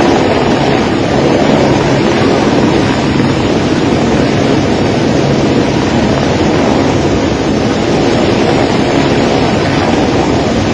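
Helicopter hovering low over a rushing flooded river: its rotor and turbine run steadily, mixed with the rush of the floodwater and the wind of the rotor wash on the microphone.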